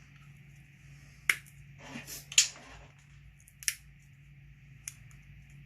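Sharp clicks and snips of hand tools working small nylon fuel-line barb fittings: four or five separate clicks, two of them close together about two seconds in. A faint steady hum runs underneath.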